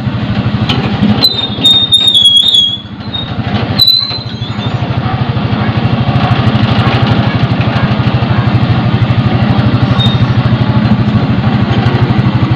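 Small engine of a portable concrete mixer running at a steady speed, with an even, fast pulsing that grows louder and steadier after about four seconds. A few short, high squeaky chirps come in the first few seconds.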